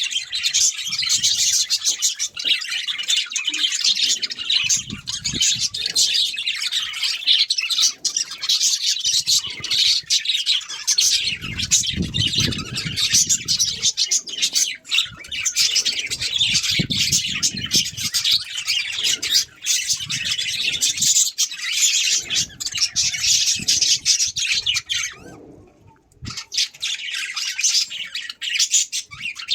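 Pet budgerigars chattering and chirping continuously, with a short pause near the end.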